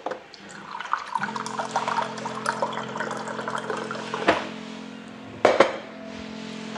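Water running from a water dispenser's tap into a blender jar for about three seconds, then two sharp knocks as the jar is handled.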